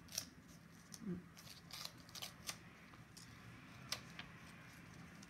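Faint scattered crinkles and small clicks of a paper sticker being peeled off its backing and handled by fingers.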